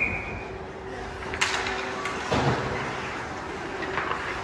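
A brief high tone at the very start, then two sharp knocks about a second apart over a steady background noise and a faint hum.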